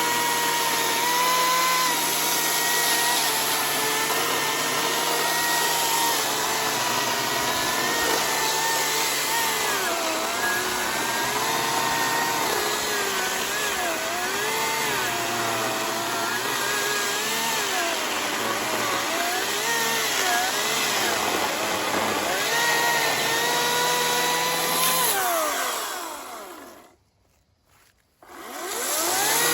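Ryobi 40V brushless battery chainsaw running with a steady high motor whine. Its pitch sags and wavers repeatedly as the chain bites into green ash logs under load. Near the end the motor winds down to near silence for about two seconds, then spins back up.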